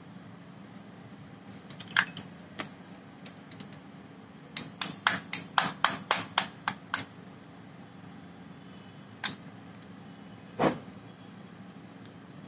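Sharp metal taps as pliers strike an Eicher tractor starter motor's Bendix drive assembly: a run of about ten quick taps, roughly four a second, with a few single clicks and knocks before and after. A steady low hum sits underneath.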